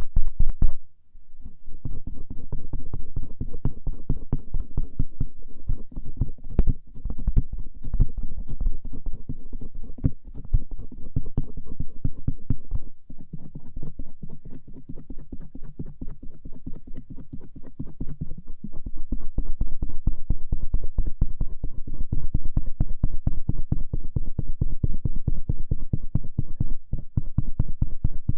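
A stainless steel ear pick scraping and rubbing rapidly over the outer ear (auricle), close up to the microphone: a dense run of fine scratchy strokes, heavy in the low end, with a short break about a second in.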